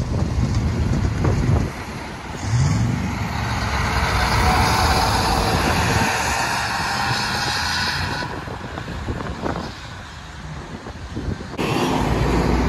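Semi-truck diesel engine pulling past close by, its pitch climbing as the truck accelerates about two seconds in, then a loud steady run of engine and tyre noise that cuts off abruptly. Near the end another truck's low diesel rumble comes in suddenly.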